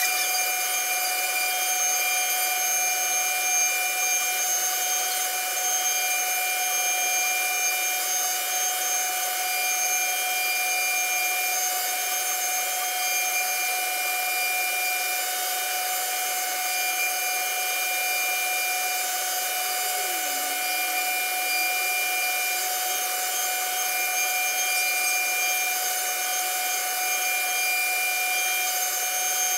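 CNC router spindle running at speed with its bit carving grooves into a wooden board: a steady whine of several high tones over the hiss of the cut.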